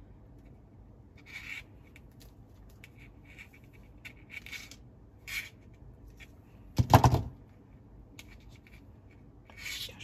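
Spring-loaded multi-function wire stripper squeezed shut on a wire about seven seconds in. A loud cluster of sharp clicks is heard as the jaws cut and strip off the insulation. Around it are soft rustling and scraping sounds from handling the wire and tool.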